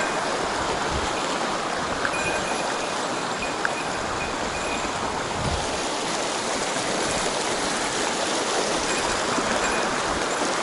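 Mountain stream water rushing over rocks in a steady, even wash.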